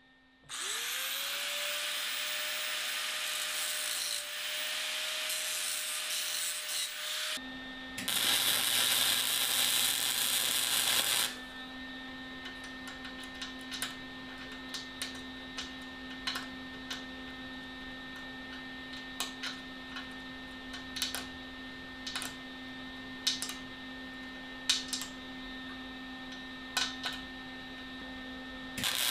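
An angle grinder spins up with a rising whine and runs for about seven seconds, cleaning the weld area on steel farrier nippers. A flux-core welder's steady hum then comes in, with a crackling weld bead of about three seconds, then scattered clicks and taps of the cleanup between passes. The crackle of a fresh weld pass starts again at the very end.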